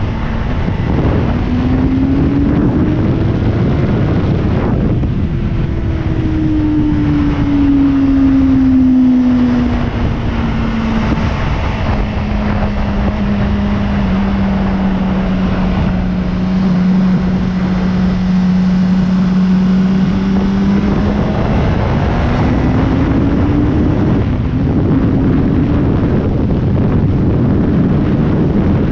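Sport motorcycle engine under way, mixed with wind rushing over the microphone. The engine pitch rises as the bike accelerates, falls back as the throttle eases about 5 seconds in, and then holds at a steady cruise. It climbs again after about 21 seconds, with a gear change about 24 seconds in.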